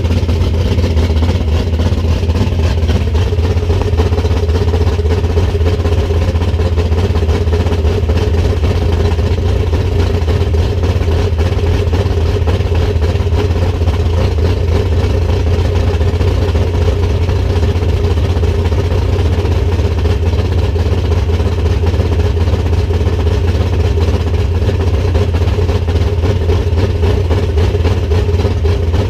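Plymouth Duster's 340 small-block V8 running steadily, freshly put back together with resurfaced cylinder heads after a coolant leak into the number 3 cylinder; it sounds good.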